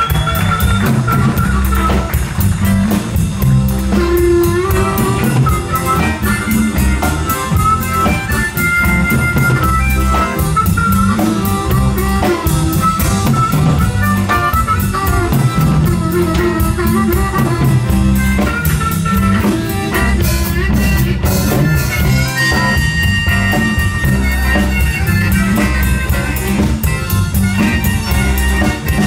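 Live blues band playing, with a blues harmonica solo played into a microphone over electric guitars, bass guitar and drums.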